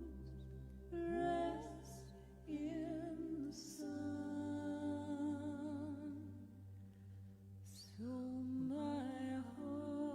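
Slow, soft music: a voice holding long, wavering notes with vibrato over a sustained low bass and keyboard chords. The bass note changes about four seconds in and again near the end.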